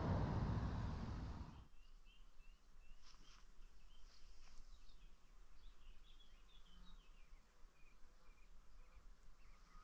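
A rushing noise that fades away over the first second and a half, then faint birdsong of many short chirps in a quiet rural setting.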